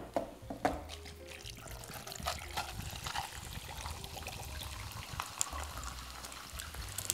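Soda poured from cans over ice into large plastic cups, fizzing and crackling as it foams up over the ice, with a few sharp clicks near the start.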